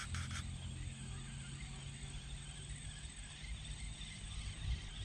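Outdoor creek-side ambience: a steady insect hiss with a low, steady hum beneath it. A brief crackle sounds right at the start.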